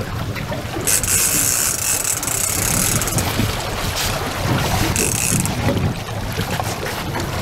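Fishing reel ticking in two bursts, about a second in and again about five seconds in, as a hooked sturgeon is fought on a bent rod. Wind noise on the microphone runs underneath.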